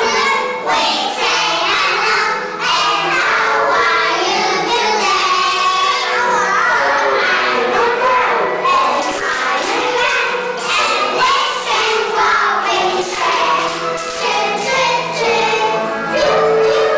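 A group of young children singing an English song together in chorus, over a musical accompaniment with a steady bass line.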